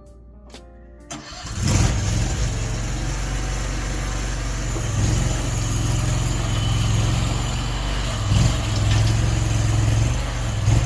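A brief snatch of plucked-string music, then, about a second and a half in, a Chinese mini skid steer's engine comes in loud and runs steadily, swelling a few times as the machine works.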